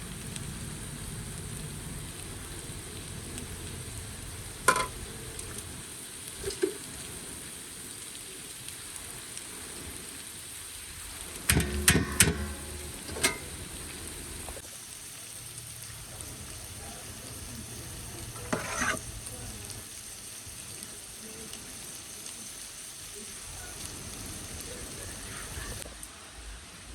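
Food sizzling as it fries in a cooking pot, a steady hiss, with a few sharp knocks of a utensil against the pot, a cluster of them about halfway through.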